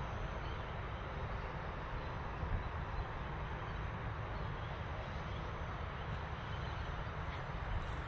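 Steady outdoor background noise: a low rumble with an even hiss above it, and a few faint high ticks near the end.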